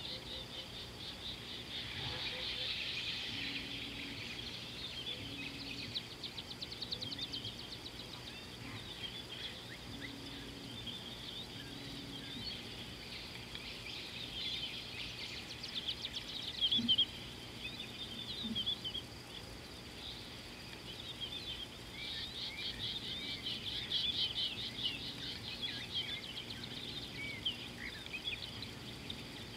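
Wild birds chirping and trilling together in a busy chorus over a faint steady background, with a few louder calls about halfway through.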